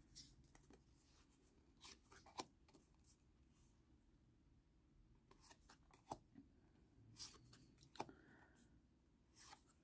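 Near silence with a few faint, scattered clicks and rustles of trading cards being handled and flipped through.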